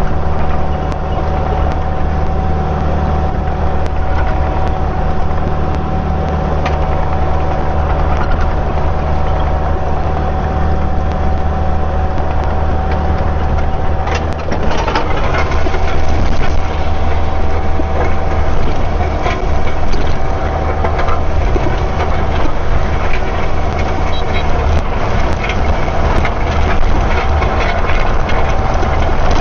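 Diesel engine of a Kubota digging machine running steadily under working throttle, with a steady high tone above it and a few knocks about halfway through.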